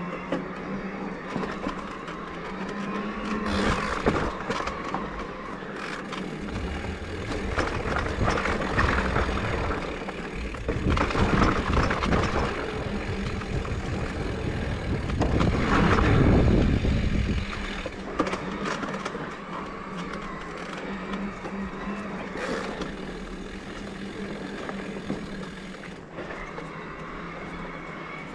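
Electric mountain bike riding a sandy trail: tyre and wind noise over a faint steady hum from its Bosch motor. Partway through, a louder low rumble as the tyres run over a wooden slatted boardwalk.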